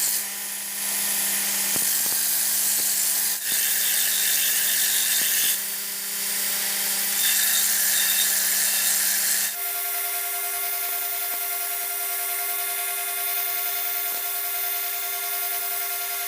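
Electric power tool, most likely a grinder, running on leaf-spring steel. Its hiss grows louder in stretches as it bears on the metal and eases between passes. About halfway through the sound changes abruptly to a steadier, higher hum with less hiss.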